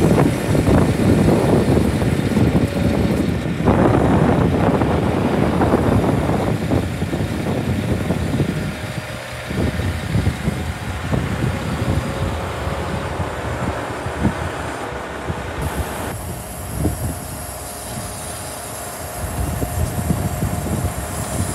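HIAB truck crane working hydraulically as the boom folds up, with the Scania R400 truck's diesel engine running to drive it. It makes a loud, uneven low rumble with a faint steady whine running through it, easing a little after about eight seconds.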